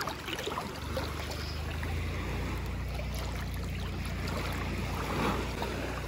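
A motorboat engine running at a steady pitch, coming in about a second in, over the wash of shallow sea water.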